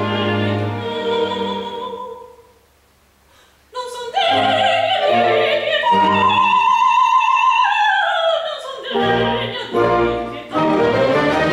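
Orchestra and operatic singer performing: the music dies away to a short silent pause, then re-enters suddenly and loudly, with a wide vibrato voice line falling through a long phrase over the orchestra before full chords return.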